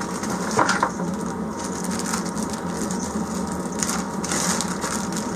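Crinkling and rustling of a plastic bag of replacement heater gaskets being handled, in two bursts about half a second in and around four seconds, over a steady low hum.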